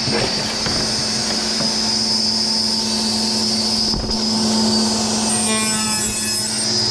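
Sliding table saw running at full speed with a steady high whine, its blade cutting a strip of 1/4 inch plywood; the sound turns buzzier for about a second, roughly five and a half seconds in.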